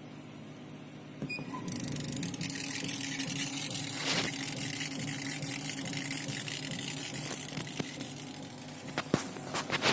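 A desktop CO2 laser cutting and engraving machine running: a steady mechanical hum with hiss comes up about a second in and holds, with a few sharp clicks near the end.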